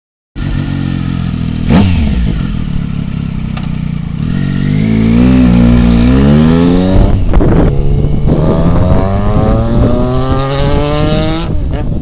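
Triumph Daytona 955i's three-cylinder engine through a baffled Wolf aftermarket exhaust: idling with a quick throttle blip about two seconds in, then revving as the bike pulls away. A gear change comes about seven seconds in, followed by steadily rising revs in the next gear.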